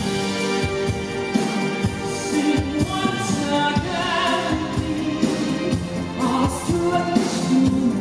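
Live concert music: a male voice singing in an operatic style over loud instrumental accompaniment with sustained notes.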